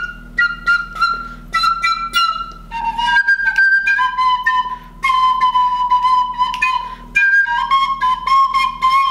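Soprano recorder playing a simple Christmas tune: short tongued notes at first, then lower, longer-held notes from about three seconds in.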